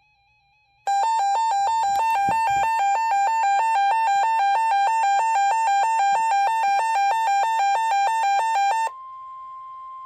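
First Alert WX-67 weather alert radio sounding its alert alarm, set off by the NOAA Weather Radio Required Weekly Test. A loud, harsh beeping starts about a second in and flips rapidly between two close pitches for about eight seconds. Near the end it gives way to a quieter steady single tone from the radio.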